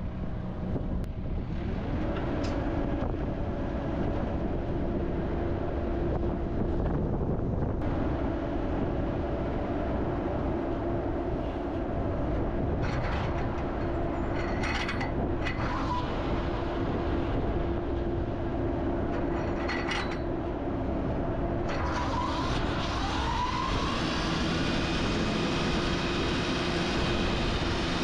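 Excavator's diesel engine and hydraulics running steadily while a newly fitted flail mower attachment is tried out, with a few short high squeals in the middle. About three quarters of the way through, a whine rises in pitch and the sound grows fuller and brighter as the flail mower is brought up to speed.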